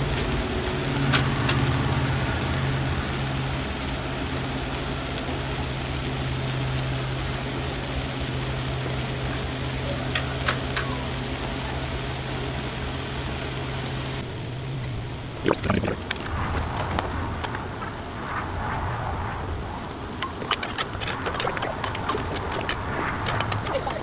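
Water sizzling into steam on a hot Blackstone flat-top griddle under sliced sweet potatoes, a steady hiss with a low hum beneath it. Both fall away about fourteen seconds in, leaving softer sizzling and a few sharp ticks.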